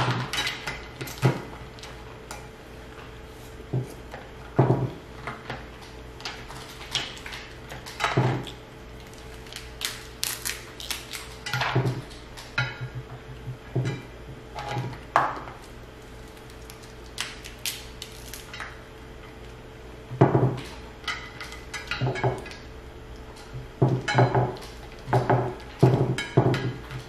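King crab legs being cracked open and handled: irregular sharp cracks, clicks and clatter of shell and utensils against dishes, some in quick clusters.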